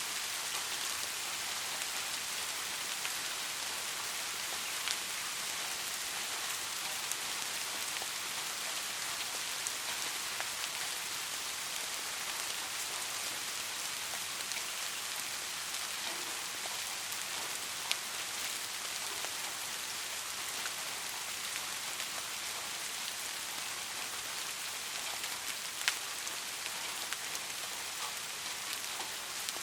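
Steady soft rain falling, a dense even hiss of raindrops, with a few sharper single drop ticks standing out now and then.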